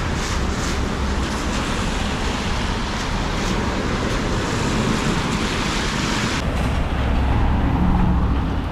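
City street traffic: a steady hiss of passing vehicles over a low rumble. The higher hiss falls away about six seconds in.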